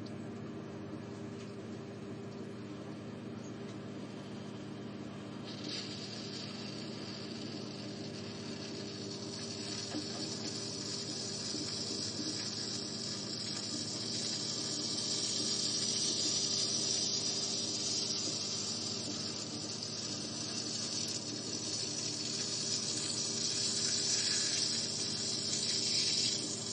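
Microwave oven running with a steady hum while an apple heats inside. About five seconds in, a high hissing from the heating apple sets in and slowly grows louder.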